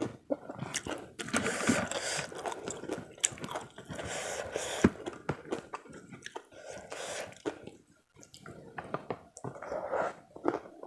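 Close-miked eating of karedok, a raw-vegetable salad in peanut sauce, with rice: irregular chewing and biting with wet mouth sounds and sharp little clicks, easing off briefly about two thirds of the way through.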